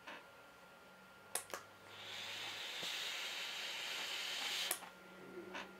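A long draw on an e-cigarette with a Mutation X V1 dripping atomizer set to wide-open airflow: a couple of clicks, then about three seconds of steady hiss as the coil fires and air rushes through the atomizer, cut off by a sharp click.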